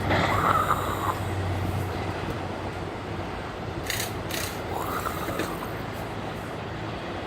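Hydraulic excavator digging: its diesel engine running steadily under mechanical clatter, with two sharp metallic clanks about four seconds in and two short rising-and-falling squeals.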